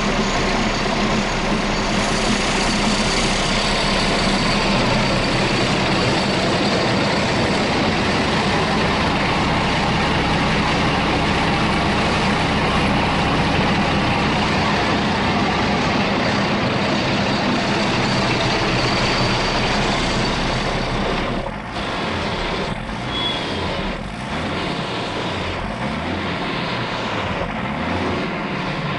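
Rebuilt bus diesel engine running loud and steady at speed. About two-thirds of the way through the sound drops slightly and turns uneven.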